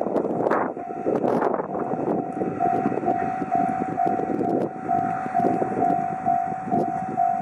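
Container freight train running past with a rumble and wheel clatter, over a level crossing whose electronic warning bell rings a steady single-pitch tone about twice a second. The bell stands out more clearly from about two and a half seconds in.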